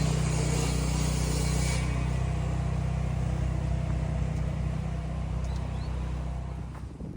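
A vehicle engine running with a steady low hum, with a hiss that fades out about two seconds in; the hum dies away near the end.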